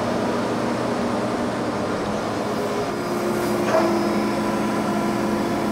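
Okamoto CNC profile surface grinder running with a steady hum from its spindle and hydraulic system. About three seconds in a higher steady tone comes in, with a short click just after, as the hydraulic table drive is started.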